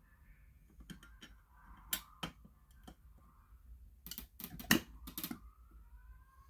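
A series of sharp clicks and knocks from hands working fire alarm devices. There are a few single clicks in the first half and a quick run of them about four to five seconds in, the loudest in the middle of that run.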